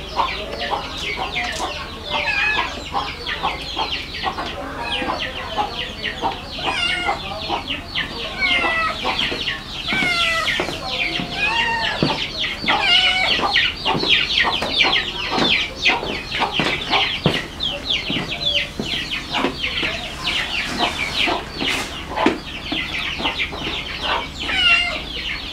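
Chickens clucking, with a dense stream of high, short chirps that goes on throughout.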